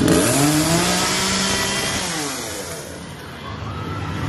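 A chainsaw engine revving: its pitch climbs in the first half second, holds high, then falls away and fades about three seconds in.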